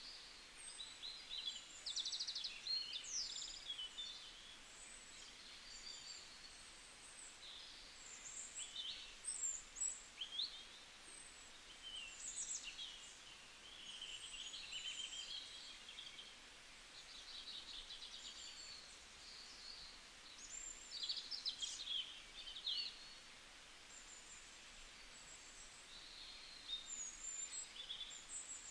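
Small birds chirping and twittering, with many short high calls, often several at once, coming irregularly over a faint steady hiss.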